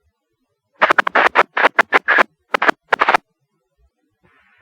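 Scanner radio transmission breaking up into a quick string of harsh crackling static bursts, unintelligible, starting about a second in and lasting about two seconds. The weak, distorted reception is typical of a fire department radio without a repeater tower.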